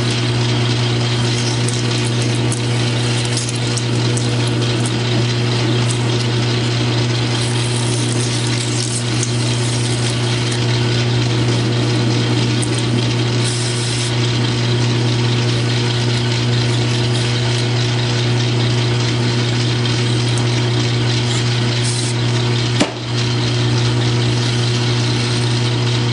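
South Bend metal lathe running steadily, its constant motor and drive hum under the hiss of a parting tool cutting into the spinning workpiece. A single sharp knock near the end.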